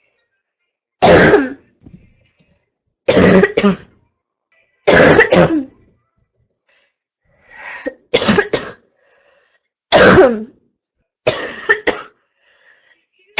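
A sick girl's harsh barking cough, in about seven loud bouts a second or two apart, several of them two coughs in quick succession.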